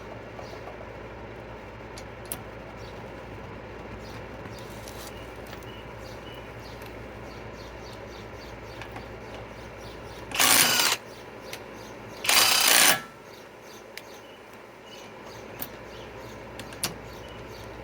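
Kobalt cordless right-angle impact wrench hammering in two short bursts about two seconds apart, each around half a second long, loosening a wheel's lug nut.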